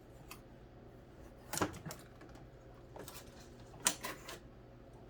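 A few sharp clicks and light knocks of hard objects being handled, spaced irregularly, with the loudest knock nearly four seconds in.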